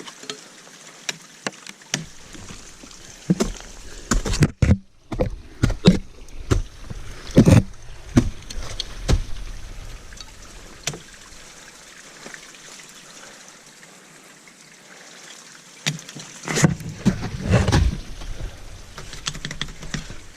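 Ice-climbing tools and crampons striking thin waterfall ice, a series of sharp hits and scrapes with rumbling handling noise, in two busy spells with a calmer stretch between.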